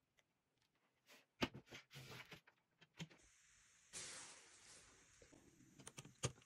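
Faint handling sounds on a glass-and-plastic incubator enclosure: a few light clicks and taps, with a soft rush of noise about four seconds in that fades away.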